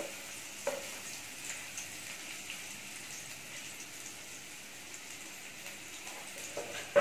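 Strips of carrot, capsicum and cabbage sizzling in hot oil in an aluminium kadai: a steady frying hiss. A light knock comes about a second in and again near the end.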